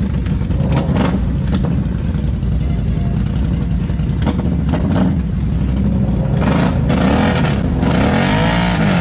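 ATV engine revving hard under load in deep mud, its pitch rising and falling repeatedly near the end, with a few sharp knocks in the first half. The front differential has snapped, so the quad is driving on its rear wheels only.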